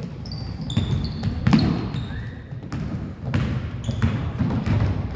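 Basketball dribbled and bouncing repeatedly on a hardwood gym floor, with sneakers squeaking briefly in short high chirps as players cut and stop.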